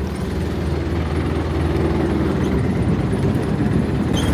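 Boat engine running steadily at low revs, a low even drone.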